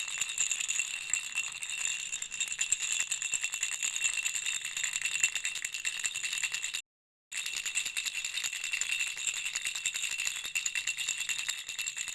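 A baby rattle shaken continuously, giving a fast, dense jingling rattle. It cuts out completely for about half a second near the middle, then resumes.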